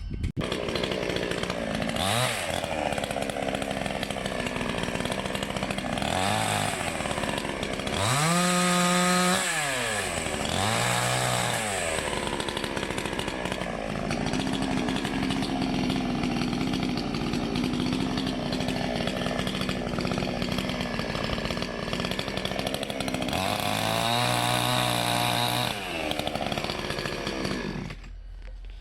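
Salem Master two-stroke gas chainsaw cutting dry maple. It revs up and falls back several times, holds a steady pitch under load for several seconds in the middle, and drops off near the end.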